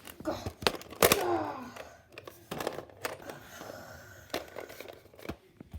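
Handling noise: a run of sharp clicks and crinkling rustles, with a short falling voice-like sound about a second in.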